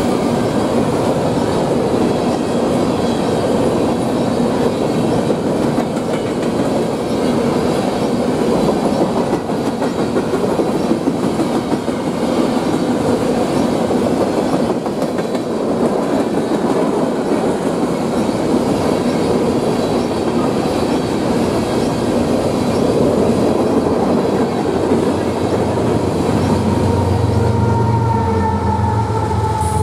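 Freight train's open-top hopper cars rolling past close by: a steady rumble with the clickety-clack of wheels over rail joints. Near the end a diesel locomotive's engine hum comes in and grows as the locomotive at the end of the train nears.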